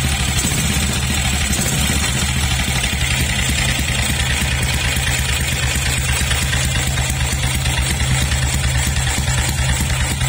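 BSA B40's 350 cc single-cylinder four-stroke engine idling with a steady, even beat.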